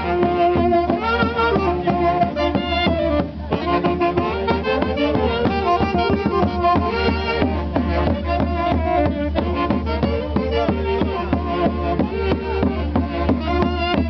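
A band playing traditional music, several melody instruments at once over a steady beat, with a brief drop in level about three seconds in.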